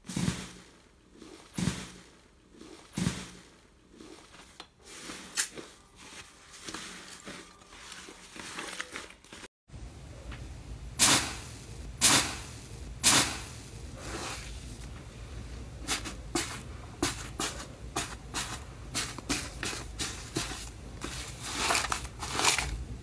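Slime squished by hand, with scattered sticky crackles. After a cut about ten seconds in, a hand presses into a crusted slime and breaks it apart, giving many rapid crackles and pops, three of them loud a second apart.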